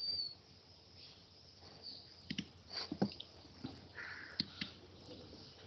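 Faint, scattered clicks and small noises over an online call's audio, with no speech.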